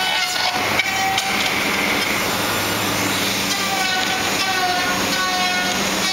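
Handheld power router trimming the rough edge of a rotomolded HDPE boat hull: its motor whine dips in pitch each time the bit bites into the plastic, recurring several times, over a steady low factory hum.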